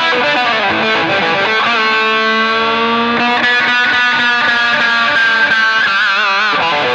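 Overdriven electric guitar lead from a Gibson SG through a Ryra Klon overdrive into a crunchy 1969 Marshall JMP 50 amp and Greenback speaker. Quick notes give way to long sustained notes, one bent slightly upward, and a held note with wide vibrato about six seconds in.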